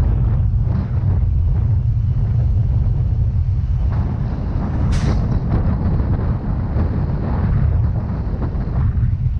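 Yamaha Mio Gravis scooter ridden along a road, its running engine and road noise under steady low wind rumble on the microphone. A single sharp click comes about five seconds in.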